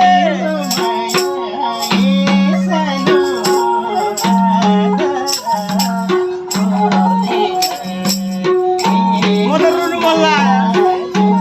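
Nepali folk music: a sarangi's sliding bowed melody over a steady madal drum rhythm, with many sharp strikes and short repeated low drum notes.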